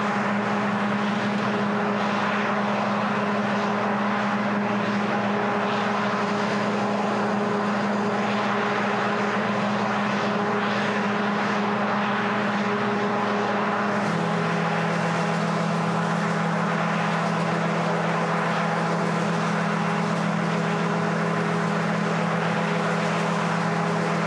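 Steady machine hum made of several held tones, with one tone stepping up in pitch about fourteen seconds in.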